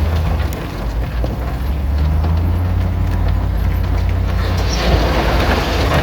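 Heavy diesel earthmoving machinery running with a deep, steady low rumble. A rushing noise swells near the end.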